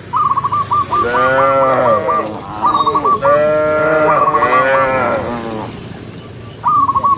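Cows mooing: two long, drawn-out moos, the first about a second in and the second about three seconds in, each lasting about two seconds and rising then falling in pitch. A quick run of short high notes recurs several times around them.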